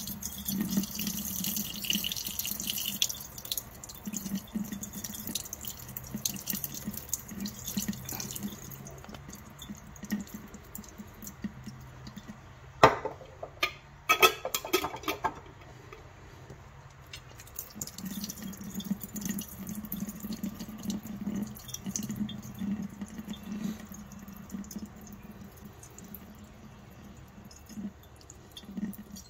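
Water poured from a glass jar into a kitchen sink drain, splashing for several seconds, then trickling and dripping as the jar is drained. A few sharp knocks come about halfway through.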